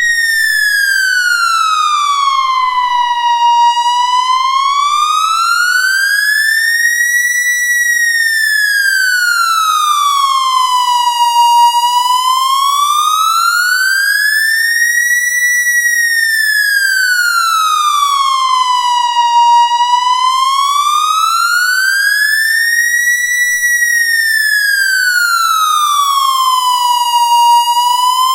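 Synthesized police siren in a slow wail, its pitch gliding smoothly up and down about once every eight seconds at a steady, loud level.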